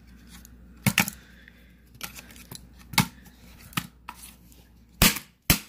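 Sharp clicks and knocks from a smashed iPhone 7's housing and loose internal parts being handled and struck. They come scattered at first, then two louder knocks near the end.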